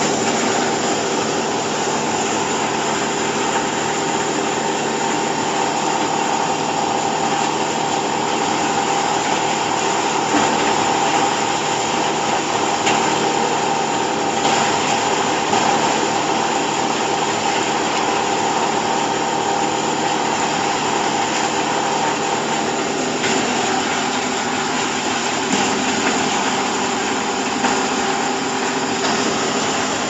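Hydraulic silage baler's motor and hydraulic pump running steadily with a held whine. The tone shifts slightly about three-quarters of the way through.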